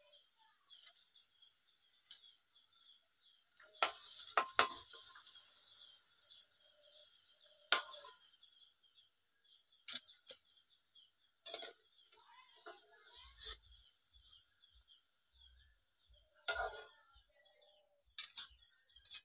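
Oil sizzling softly in a metal karahi during deep-frying, with about a dozen sharp clinks and knocks of a metal skimmer and other utensils against the pan, scattered through.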